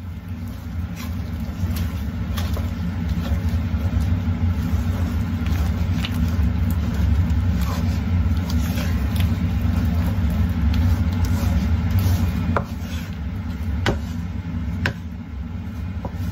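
A wooden spatula stirs and scrapes a thick, nearly set flour-and-water paste in a frying pan, with a few short taps against the pan. A loud steady low hum runs underneath.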